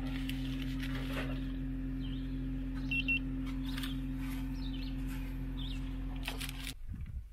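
A steady low hum with an even tone under it cuts off abruptly near the end. Birds chirp now and then, and a short double beep sounds about three seconds in.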